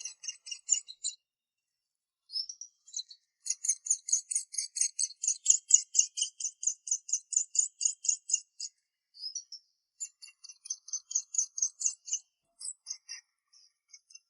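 Small songbirds chirping in fast runs of short, high notes, several a second, with brief pauses about two seconds in and again near ten seconds: calls given while crowding for food at feeding time.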